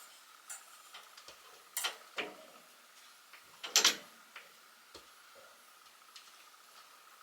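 A few sharp clicks and knocks from a closet rack being taken apart by hand, the loudest pair about two and four seconds in, over a faint steady high hum.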